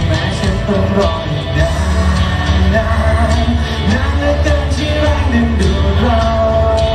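A male singer singing a pop song live into a handheld microphone over pop backing music with a steady bass line.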